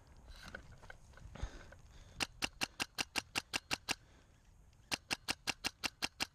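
Rifle scope turret being turned click by click in two quick runs of even clicks, about six a second, around ten and then eight, adjusting the aim of an airsoft rifle that is shooting far right.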